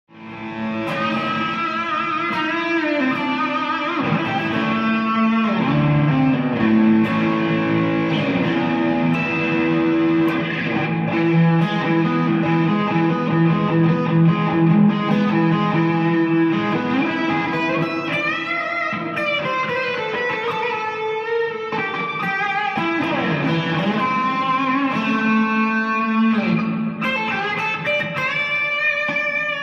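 Stratocaster-copy electric guitar being played in a sound test after a complete overhaul: a run of single notes and chords with string bends and slides.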